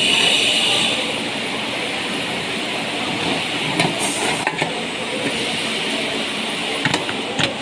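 Steady building-site background noise, with several sharp metallic clicks from light-gauge metal ceiling channel strips being handled and bent: a cluster about four seconds in and two more near the end.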